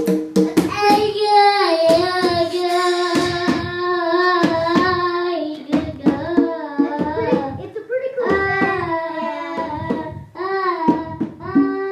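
A child singing a tune in long held notes, with sharp knocks between and under the notes.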